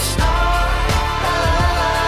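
Pop song with a steady beat, drum hits about every 0.7 seconds under sustained chords.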